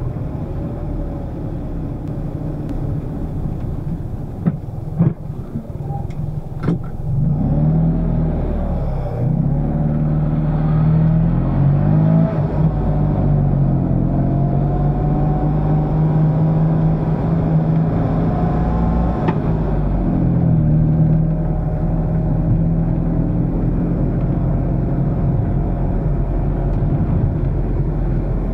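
Fiat 126p's rear-mounted two-cylinder engine running as the car drives along, heard from inside the cabin. It eases off with a few sharp clicks around five to seven seconds in, then pulls harder, its pitch rising and falling several times before settling into a steady cruise.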